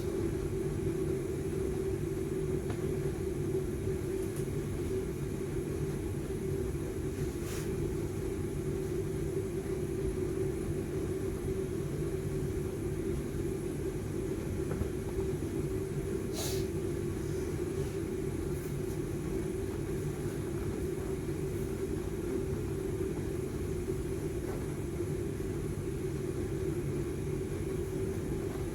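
Steady low rumble and hum, unchanging throughout, with a couple of faint clicks about a third and halfway through.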